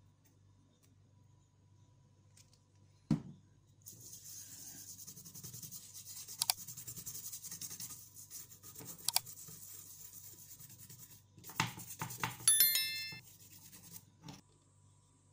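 Small brush scrubbing the solder side of a circuit board: a rapid, scratchy rubbing that starts about four seconds in and stops near the end. A knock comes just before it, and a short chime sounds near the end.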